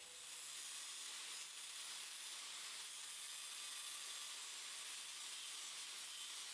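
Angle grinder with a thin cut-off wheel cutting through a copper strip: a steady hiss from the abrasive disc, with a faint low motor hum underneath.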